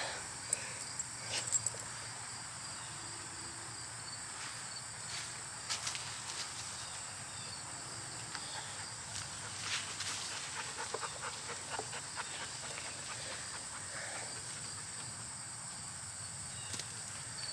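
Steady high chirring of insects in the garden, one voice pulsing evenly, with scattered faint rustles and clicks of hands sorting potatoes out of loose soil.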